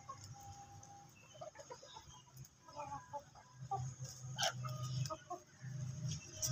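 A flock of desi chickens and roosters clucking softly while they feed, with one drawn-out note about half a second in. A sharp click sounds about two-thirds of the way through.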